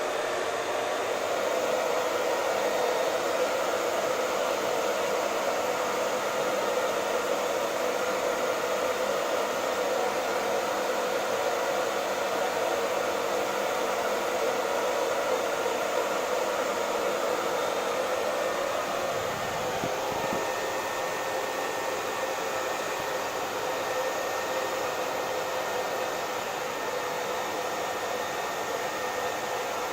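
Electric hair dryer running steadily: a continuous rush of blown air over the hum of its motor. The tone shifts slightly about two-thirds of the way through.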